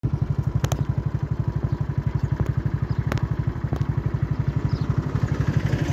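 Small engine ticking over at a low, even beat of about twelve pulses a second, with a few sharp clicks.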